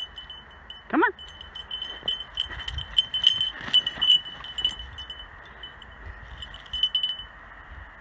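Small metal jingling from a dog's collar as it bounds through snow: a high ringing that shakes in quick, irregular pulses and fades out near the end. A short rising-and-falling whine sounds about a second in.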